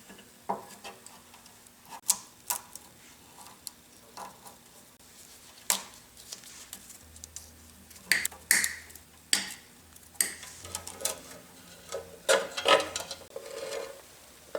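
Irregular clicks, taps and light clatter of small metal parts and tools being handled during electrical wiring work, with a few sharper knocks scattered through.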